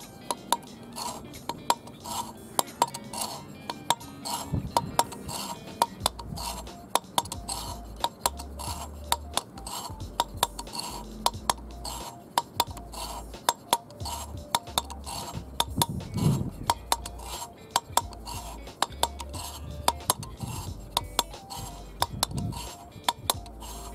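An engine valve being lapped into its seat by hand with grinding compound: rapid, irregular metallic clicks and gritty scraping as the tool twists the valve back and forth against the cylinder head. Background music with a low bass line plays underneath.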